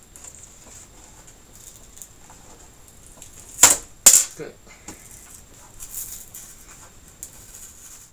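Plastic clips snapping loose as LED backlight strips are prised off a TV's metal back panel: two sharp snaps about half a second apart, a little under four seconds in, with lighter clicks and handling noise around them.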